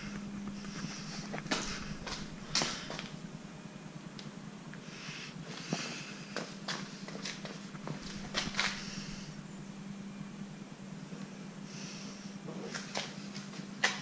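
Handling noise from a handheld camera: scattered clicks and light knocks, with short breaths near the microphone every few seconds over a steady low hum.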